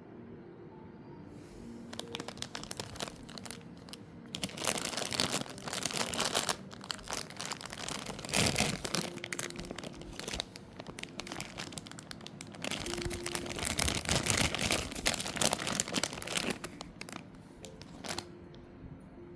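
Parcel packaging being torn open and crinkled by hand. Irregular spells of tearing and crinkling run with short pauses and stop a little before the end.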